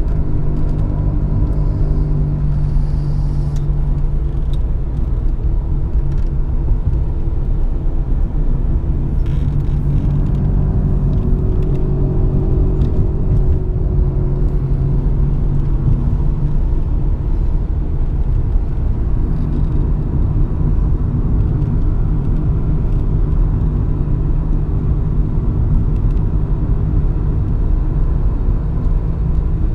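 Steady engine and tyre-on-road rumble heard from inside a moving car's cabin, the engine note shifting slightly as the car drives on.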